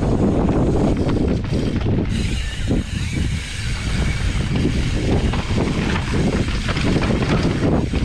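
Wind buffeting the microphone of a camera riding on a mountain bike down a downhill trail, with knocks and rattles from the bike over rough ground. A brighter hiss joins from about two seconds in.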